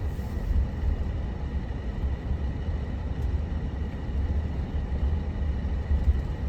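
Steady low road and engine rumble heard from inside a moving minivan.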